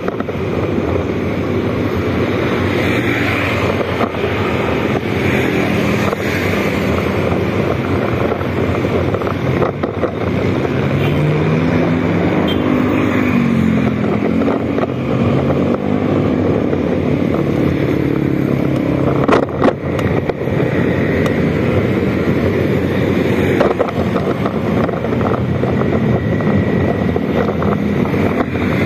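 Motorcycle engine running while riding in traffic, its pitch rising and falling with the throttle about halfway through, with wind on the microphone.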